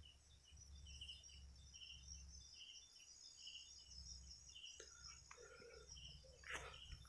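Faint rural outdoor ambience: a steady high insect trill with a short chirping call repeating at an even pace, a little faster than once a second, and a few brief short sounds near the end.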